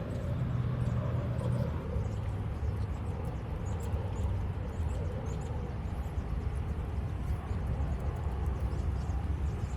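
Steady low outdoor rumble with faint scattered clicks over it.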